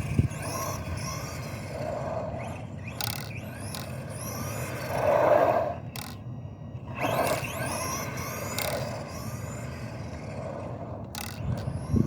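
Arrma Senton 4x4 RC truck being driven: its electric motor whines up and down in pitch as it speeds up and slows, over the scraping of its tyres on the ground, with a few sharp knocks.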